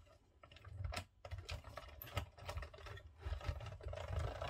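Small hand-cranked die-cutting machine being turned, rolling a cutting-plate sandwich with a number die and a 2 mm foam sheet through its rollers. A low rumble with fast, irregular clicking starts about half a second in and keeps going.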